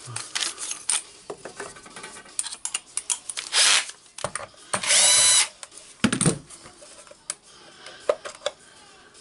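Cordless screwdriver running in two short bursts, the second a half-second motor whine about five seconds in, as it backs screws out of a hammer drill's plastic top cover. Small clicks and knocks of the tool against the housing come in between.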